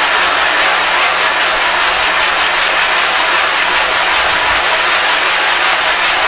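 A sharpening stone scrubbed back and forth under heavy hand pressure on a flat abrasive plate to flatten it: a loud, steady gritty scraping that stops abruptly at the end.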